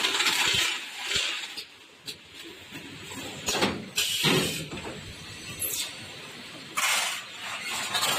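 Automatic taping machine sealing a styrofoam ice box: irregular swishing and scraping with a few sharp clicks as the box and tape pass through.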